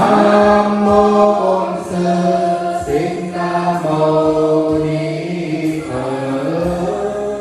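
Buddhist monks and nuns chanting together in slow, drawn-out melodic tones, each note held for about a second before the voices step to the next pitch.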